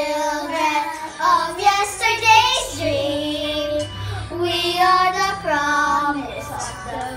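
Two young girls singing together, long held notes with a wavering pitch.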